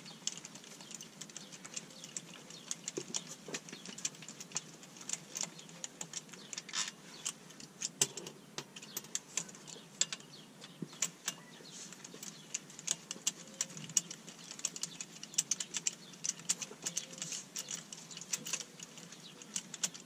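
Hand ratchet wrench clicking in quick, irregular runs as the bolts of a transmission tail housing are backed out.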